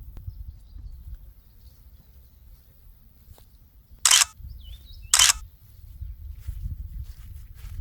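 Outdoor ambience with a low rumble of wind on the microphone, broken a little past the middle by two short, sharp bursts about a second apart, with a brief bird chirp between them.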